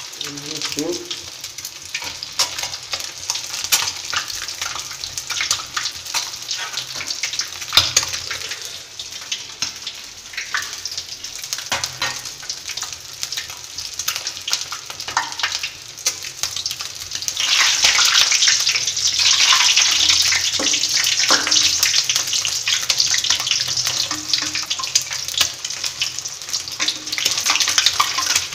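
Eggs frying in very hot oil, a steady crackling sizzle with occasional light clicks, growing clearly louder about two-thirds of the way through.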